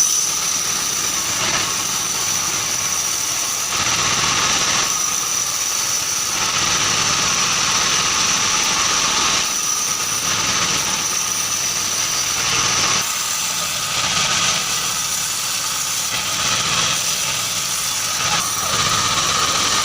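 Band sawmill running steadily with a continuous high whine, the machine's motor and blade sounding evenly while keranji timber is sawn.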